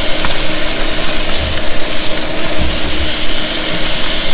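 Ribeye steaks searing on a hot charcoal grill grate, sizzling in a steady, loud hiss, with a faint steady low hum underneath.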